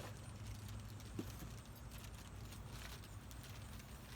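Faint clicks and rattles of small soft wash fittings and their packaging being handled, over a steady low hum.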